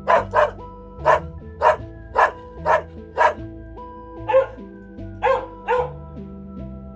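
A dog barking, about ten short barks in irregular pairs and singles, over steady background music.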